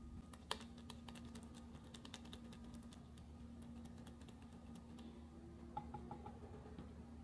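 Silicone-coated whisk beating eggs, flour and water into batter in a glass jug: quick, faint, light clicks and taps of the wires against the glass, thinning out after about five seconds. A faint steady hum lies underneath.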